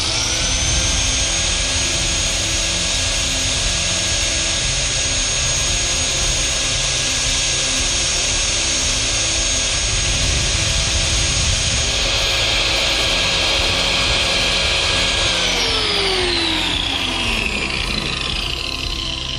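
Angle grinder running steadily at full speed, its high whine holding one pitch, while a plastic stair-nosing trim piece is ground to shape against the disc. About fifteen seconds in it is switched off and the whine falls away as the disc spins down.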